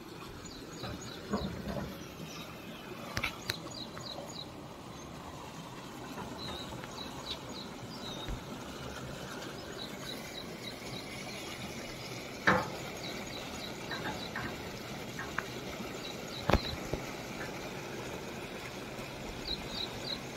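Water rushing steadily out of a small channel outlet, with birds chirping in short runs of high notes over it. A couple of sharp knocks about twelve and sixteen seconds in.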